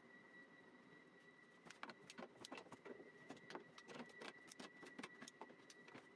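A run of faint, irregular light clicks and taps, about a dozen over roughly four seconds, starting about a second and a half in, over a faint steady high whine.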